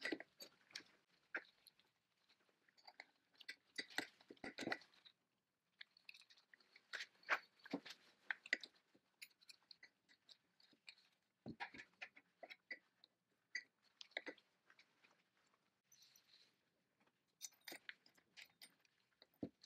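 Faint, irregular clicks, light knocks and scraping from hand work on the old pneumatic saw's metal parts, in bunches with short pauses.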